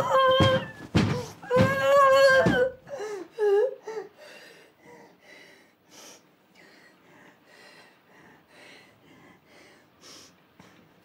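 A young woman wailing in anguish, a loud high cry that breaks off in gulps about three seconds in. It gives way to quiet, rapid sobbing breaths.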